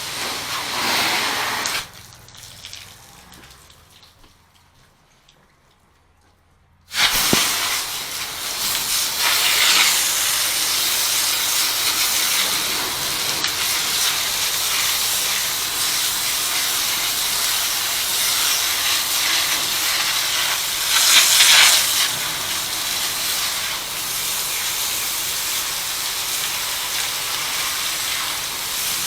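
Hissing spray of a pressure-washing wand's water jet. It stops about two seconds in, and after a few seconds of near quiet it starts again abruptly and runs steadily, with a brief louder surge a little past two-thirds of the way through.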